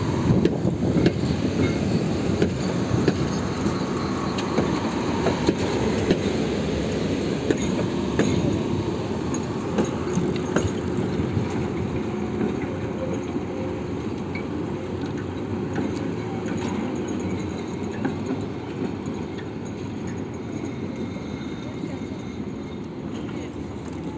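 Two coupled Konstal 105N-family high-floor tramcars rolling past on curved track, with a steady wheel rumble and many sharp clacks over rail joints and points. The sound slowly fades as the tram moves away.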